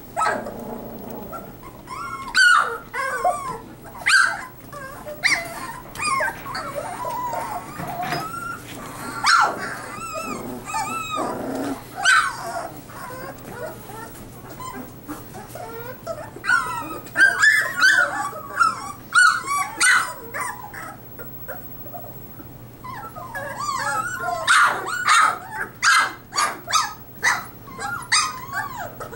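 A litter of three-week-old puppies whimpering and yipping in short, high, wavering calls, several at once in busy spells with quieter gaps between.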